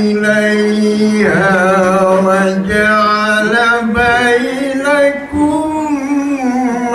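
A man's solo voice chanting in long, drawn-out notes. It holds one note, swoops in pitch about a second in, then carries on in wavering, ornamented runs, in the style of Islamic religious chanting.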